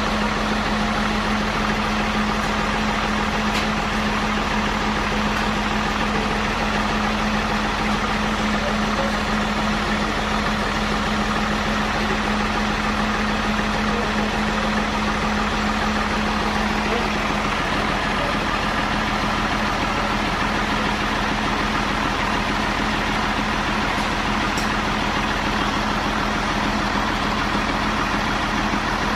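Sawmill machinery running steadily, a continuous motor noise with a low steady hum that drops out about two-thirds of the way through.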